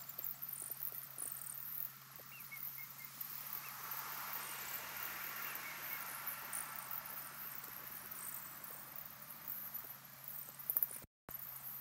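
Outdoor ambience of a wooded pond: faint high chirping over a steady low hum, with a broad rushing swell building and fading through the middle. The sound cuts out briefly near the end.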